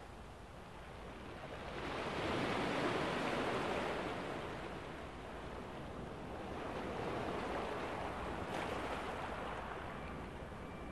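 Sea waves washing on a shore. The surf swells about two seconds in, eases off, then swells again more gently about seven seconds in.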